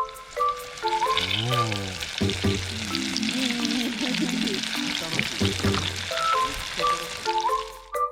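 A steady sizzling hiss, like food frying, over light background music with mallet-like notes. The hiss starts about a second in and fades just before the end.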